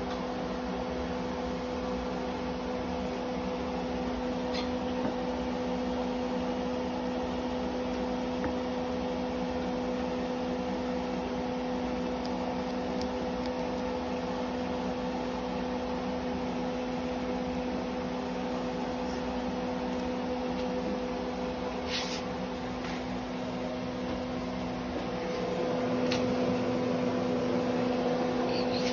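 Steady hum of a running appliance: a constant low tone with its overtone over an even whir, growing a little louder near the end. A few faint clicks stand out above it.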